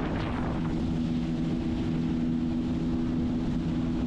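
Sea-Doo personal watercraft engine running at a steady speed, a constant drone over a low rumble.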